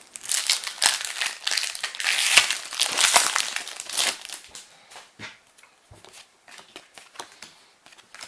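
Foil Yu-Gi-Oh booster pack wrapper being torn open and crinkled in the hands, a dense crackling loudest around the middle; after about four and a half seconds it gives way to scattered light clicks of cards being handled.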